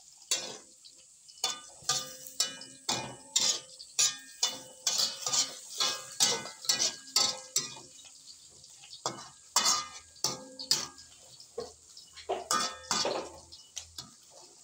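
A metal spatula stirring snails in a metal wok, clanking and scraping against the pan two to three times a second. Each stroke leaves the wok ringing briefly. There is a short pause about halfway through before the stirring starts again.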